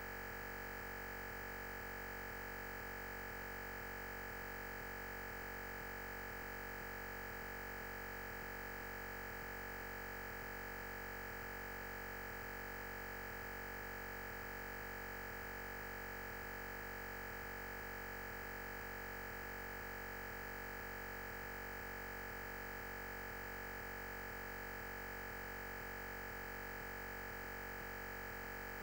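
Steady electronic noise with a constant high whine, unchanging in pitch and level, and no speech. The lecture's sound has dropped out, leaving only signal noise on the audio track.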